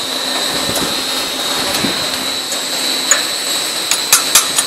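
Single-wall corrugated pipe machine running: a steady whirring hiss with a thin high whine over it. Near the end, a regular clacking starts, about four times a second.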